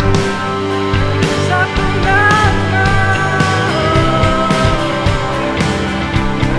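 Worship band playing an instrumental passage without singing: drums keeping a steady beat under bass and a sustained, sliding lead melody line.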